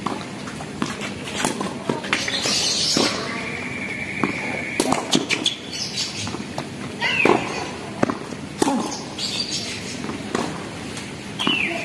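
A tennis rally on a hard court: sharp hits of racket strings on the ball and ball bounces, irregularly spaced, with a few short high squeaks.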